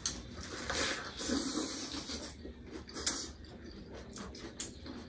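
Quiet sounds of people eating at a table: scattered short rustling and mouth noises, a sharp click about three seconds in, and a faint low murmur of a voice briefly near the start.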